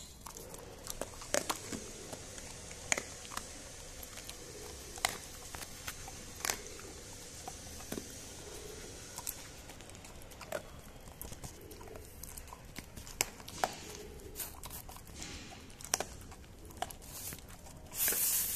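A dog chewing dry Pedigree kibble: sharp, irregular crunches, roughly one every second or two, with a louder noisy stretch near the end.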